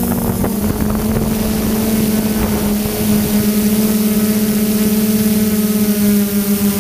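DJI F550 hexacopter's six motors and propellers humming steadily in flight, with wind rumbling on the onboard microphone.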